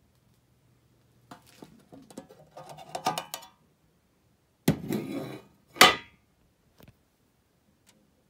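Metal clicks and scrapes from a gallon can of Berryman Chem-Dip carburetor parts cleaner as its lid is pried off. About five seconds in comes a louder metal rattle, then one sharp clank.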